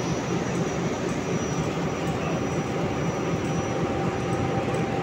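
Steady drone of running machinery, the constant background noise of a ship's engine-room workshop, with a faint high whine held throughout.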